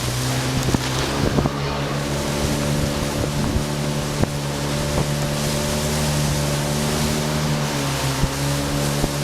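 Speedboat engine running steadily under way, its pitch dipping slightly near the end, with wind buffeting the microphone and scattered sharp knocks.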